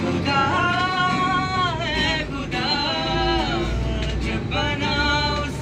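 A young man's high singing voice in three long phrases, held notes with wavering, gliding ornaments, over the low rumble of a moving train carriage.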